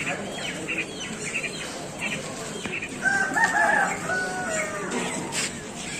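A rooster crowing once, starting about three seconds in and lasting about two seconds. Short high chirps from other birds come before it.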